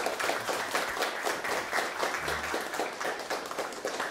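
A group of people applauding: dense, steady hand clapping.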